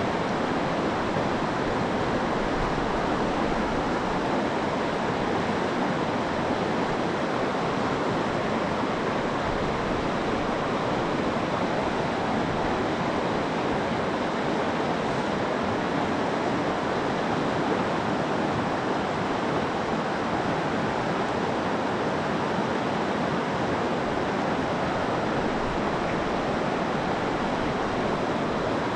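Stream water rushing over rocks in a steady, unbroken rush.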